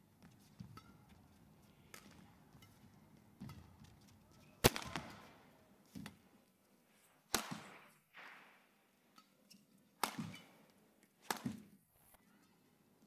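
Badminton rackets striking a shuttlecock in a rally: sharp smacks a second or more apart, the loudest about five seconds in, with lighter taps and footfalls between.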